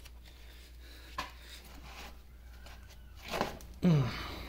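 Low steady hum with a small click about a second in, then a short grunt near the end.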